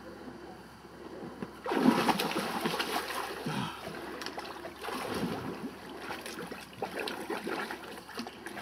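Lake water splashing and sloshing as a man lowers himself off a jetty ladder and swims, starting suddenly about two seconds in.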